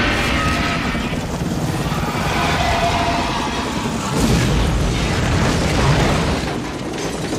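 Action-film sound mix: deep rumbling booms and dense low noise under orchestral music, swelling at about four and six seconds in.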